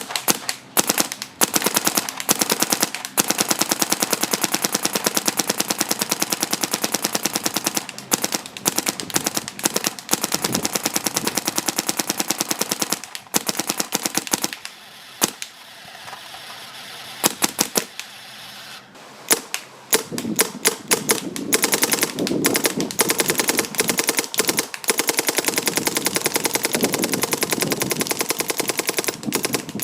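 Spyder paintball marker firing in long, rapid strings of sharp pops, shooting hot. The firing thins to a few scattered shots about halfway through, then picks up fast again.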